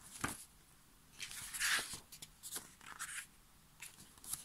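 Pages of a thin paper lyrics booklet being flipped, giving several short papery rustles, the longest about a second in.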